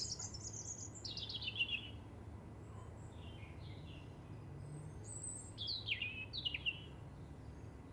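Songbirds singing: a high trill at the start, a run of falling notes about a second in, and a few quick descending chirps between about five and seven seconds in, over a faint, steady low hum.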